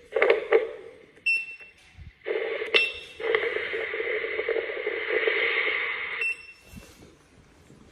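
Video intercom monitor beeping at each button press, three short high beeps in all. Between them a steady hissing rush comes from the monitor's speaker, and it stops at the last beep.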